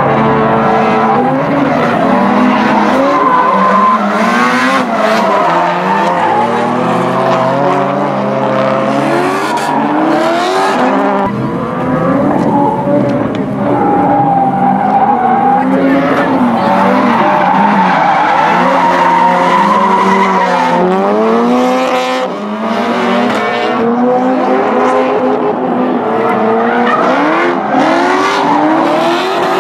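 Several drift cars sliding together, their engines revving up and down again and again over squealing tyres.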